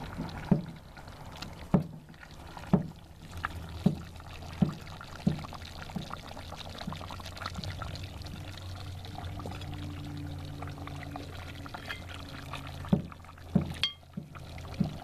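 Metal serving spoon knocking and scraping against a cast-iron potjie pot as oxtail stew is ladled out, with thick sauce pouring and dripping back. About six sharp knocks come in the first half, roughly a second apart, and a few more near the end.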